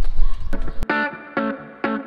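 Low outdoor rumble, then about a second in it cuts to background music: electric guitar chords played through effects, struck in short repeated stabs about every half second.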